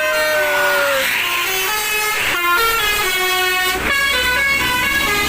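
Tour bus's telolet horn, a multi-tone air horn, playing a tune: a long, slightly falling note, then a run of short notes stepping up and down.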